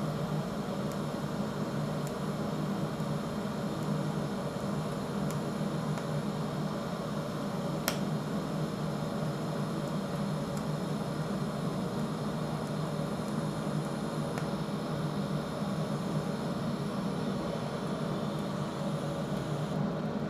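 TIG welding arc burning steadily with a constant hum and hiss as Hastelloy filler rod is fed into cut-out cracks on a preheated, red-hot cast heat-resistant steel turbine blade. There is one sharp click about eight seconds in, and the arc cuts out just before the end.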